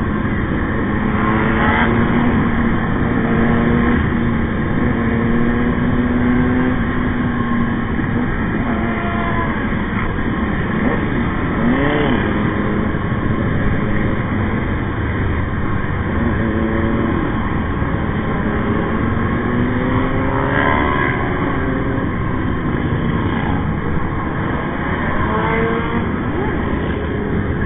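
Motorcycles running at road speed in a group: a steady engine drone under heavy wind rush on the bike-mounted microphone, with the engine pitch rising and falling as the riders roll the throttle on and off, most clearly about twelve seconds in and again around twenty seconds in.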